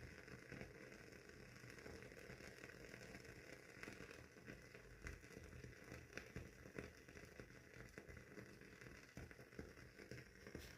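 WoodWick candle's wooden wick crackling as it burns: faint, irregular small pops and clicks over a steady soft hiss.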